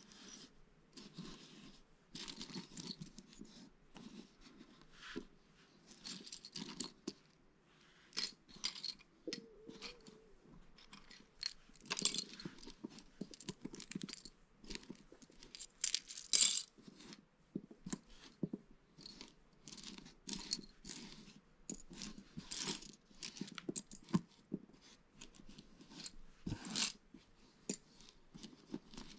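Lego bricks being handled and pressed together: irregular small plastic clicks and clatters, with light rustling of the parts.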